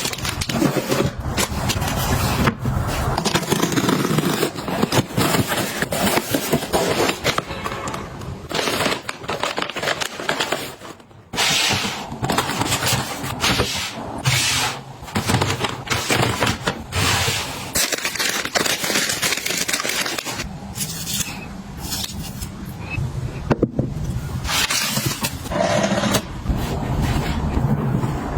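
Kitchen handling sounds: food packaging and plastic containers rustling, clicking and knocking as they are unpacked and put away, with a brief lull about eleven seconds in.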